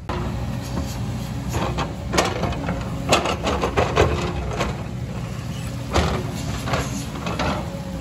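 JCB excavator's diesel engine running steadily while the steel bucket digs and scrapes through loose landslide rock. Stones clatter and knock against the bucket and each other, with several sharp strikes, the loudest a little after two, three and four seconds in and at six seconds.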